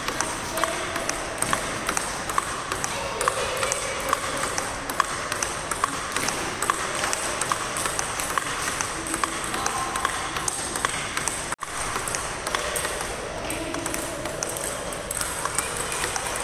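Table tennis rally: the ball clicks in a quick, steady rhythm as it strikes the paddles and bounces on the table, several hits a second. The sound cuts out for an instant about two-thirds of the way through.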